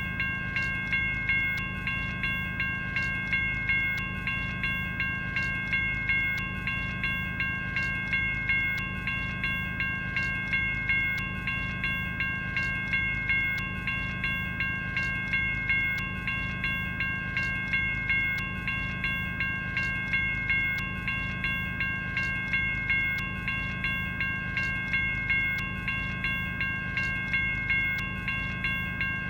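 General Signals Type 1 electronic railroad crossing bell (e-bell) ringing continuously, a rapid, even series of electronic bell strikes with ringing tones that sustain between strikes.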